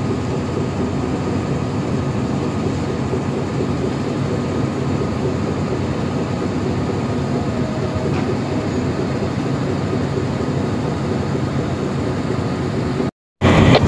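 Steady drone of a boat's diesel engine running, heard from aboard, with a low hum. It cuts off abruptly near the end.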